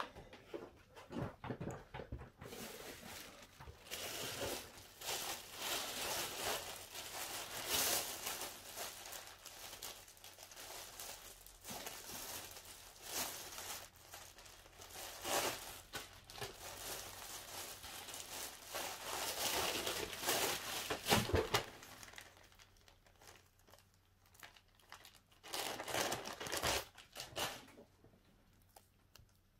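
Hands crinkling and tearing thin material during phone repair work, with many small clicks, coming in long irregular spells. The sound dies down about three quarters of the way through, comes back in one short burst, then stops before the end.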